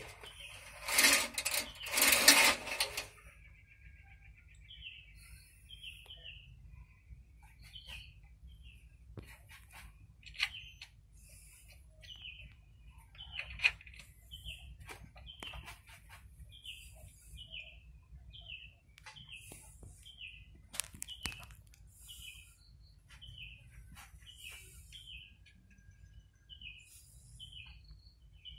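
Two loud noisy bursts about a second in. Then a small bird chirps over and over, short high hooked notes about once a second.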